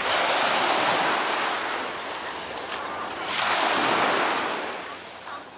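Small sea waves washing in on a sandy beach, the noise swelling twice and fading near the end.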